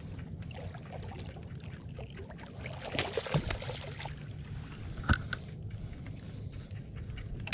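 A hooked snook thrashing and splashing at the surface beside an aluminium jon boat, loudest about three seconds in, with one sharp knock about five seconds in, over a steady low rumble.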